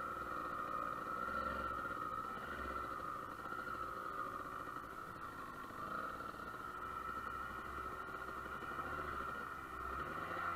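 Dirt bike engine running as the bike is ridden along a dirt and sand trail, a continuous, fairly even engine note throughout.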